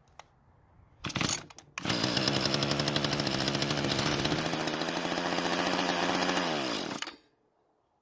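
Small two-stroke engine of a Mantis tiller test-started on fuel put into the carburetor throat: a short burst about a second in, then it catches and runs steadily for about five seconds before winding down and stopping. The run confirms spark and compression, and the engine sounds very healthy.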